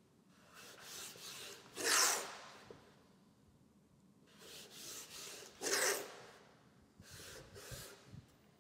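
Blue painter's tape being rubbed down onto a wooden beam by hand: about five short rubbing strokes, the loudest about two seconds in.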